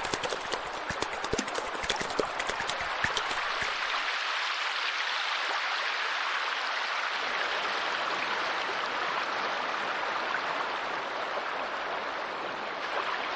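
Steady rush of running water, with a quick flurry of sharp clicks over it during the first three or four seconds.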